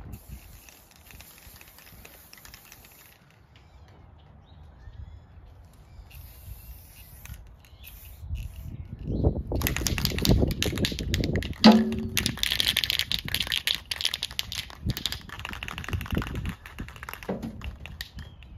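Aerosol spray paint can hissing in short bursts, then shaken hard from about halfway in, its mixing ball rattling rapidly and loudly.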